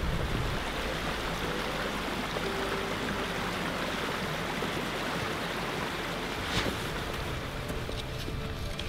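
Steady rushing of a flowing stream, with one brief click a little over six seconds in.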